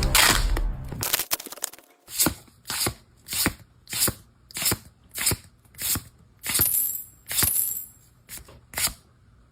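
Pokémon trading cards slid one at a time off a pack's stack: about a dozen short papery swishes, roughly one every two-thirds of a second. The tail of a louder edited sound effect fades out over the first second or so.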